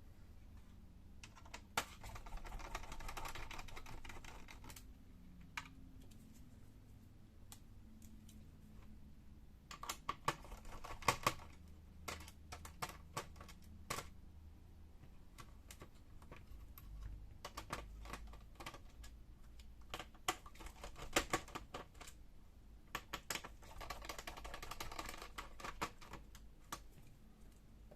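Small screws being undone from a laptop main board with a screwdriver: scattered sharp clicks and taps of the tool, screws and case parts, with two stretches of a couple of seconds of scratchy rustling noise, one near the start and one near the end.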